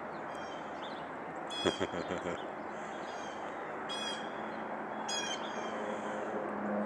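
A bird giving harsh calls: a quick run of short calls about one and a half seconds in, then a single call about four seconds in and another about five seconds in, over a steady outdoor background hiss.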